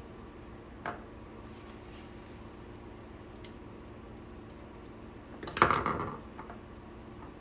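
A light click about a second in, then about five and a half seconds in a short clatter of small hard objects, tools and plug parts being handled and set down during an extension cord plug repair.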